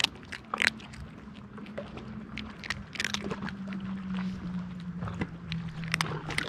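Cat crunching dry kibble close up: a run of sharp, irregular crunches, a few of them louder. A steady low engine drone runs underneath.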